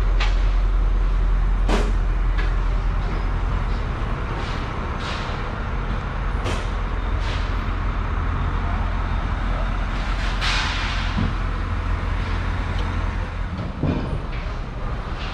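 Heavy truck engine idling steadily with a deep rumble, with scattered metallic knocks and a short hiss of air about ten seconds in.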